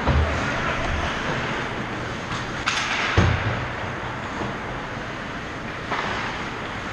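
Ice hockey play close up: a steady wash of rink noise with skates scraping on the ice, broken by a few sharp knocks and one heavier thud about three seconds in.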